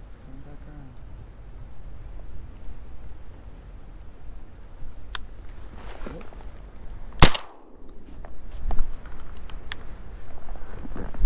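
One loud shotgun shot about seven seconds in, a sharp crack with a short ringing tail, over a steady low rumble.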